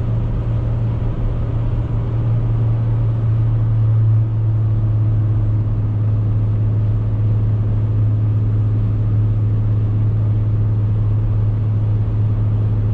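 Ram 3500's 6.7 L Cummins diesel and road noise heard from inside the cab, a steady low drone while the truck coasts down a steep grade on its exhaust brake without downshifting. The drone gets slightly louder about four seconds in.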